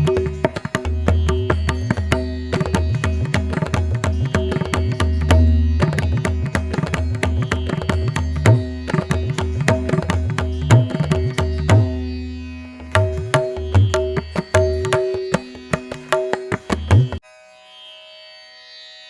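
Background music in Indian classical style: rapid hand-drum strokes and plucked strings over a steady drone. The drumming stops suddenly near the end, leaving quieter held string tones.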